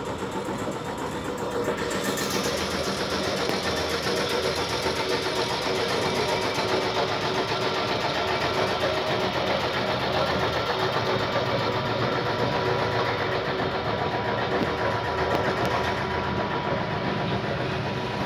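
An engine running steadily, a little louder after about two seconds.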